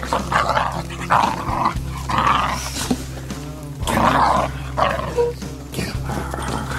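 Two hunting-dog puppies growling in repeated short bursts as they wrestle in rough play, over background music with a steady bass.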